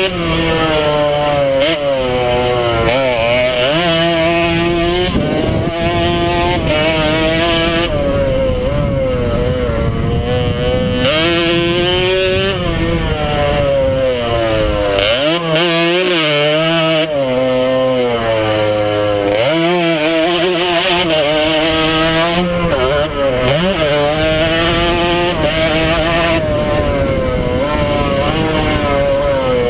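100cc two-stroke motocross bike engine, heard close from the rider's helmet, running hard throughout. Its pitch climbs repeatedly under acceleration, drops back at each gear change and when it is backed off for corners, then rises again.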